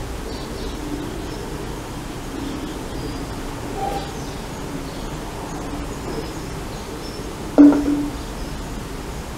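Steady outdoor background noise. About three-quarters of the way through, a single sharp knock with a short ring as a plastic water bottle is set down on a metal window frame.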